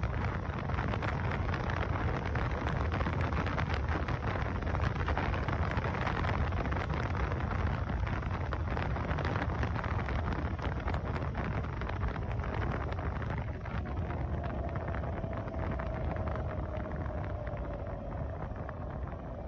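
Wind rush and road noise on a handlebar-mounted microphone from a Zero FX electric motorcycle riding at about 40 mph. Near the end the bike slows and a faint whine from its electric drive falls in pitch.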